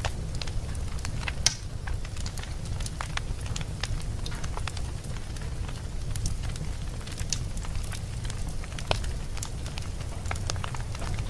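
Fire burning in a fireplace: scattered crackles and pops over a steady low rumble, with a sharper pop about a second and a half in and another about nine seconds in.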